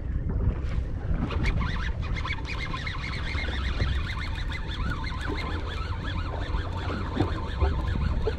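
A flock of birds calling, a dense overlapping chatter of short calls starting about a second in, over steady wind and water noise.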